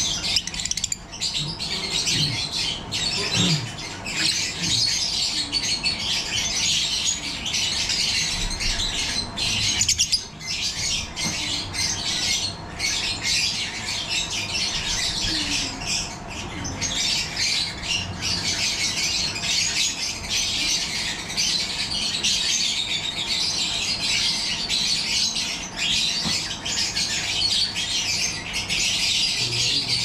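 Masked (personata) lovebirds chattering and squawking, a constant high-pitched stream of calls with no pauses.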